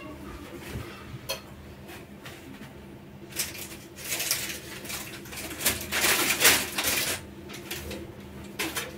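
Kitchen counter handling sounds: a few light clicks, then a busy stretch of rustling and clattering from about three to seven seconds in as paper and dishes are handled.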